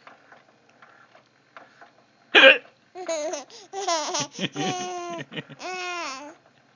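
One sharp hiccup about two and a half seconds in, then about three and a half seconds of laughter from the Alexa voice assistant, in short pitched syllables that glide up and down.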